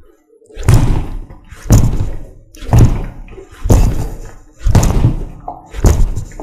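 Close-range uppercuts landing on the chin of a freestanding body-opponent training dummy: six hard hits about a second apart, each dying away quickly.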